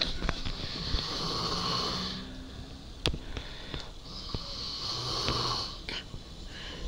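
A person snoring in sleep: two long rasping snores about four seconds apart, each a couple of seconds long, with a sharp click between them.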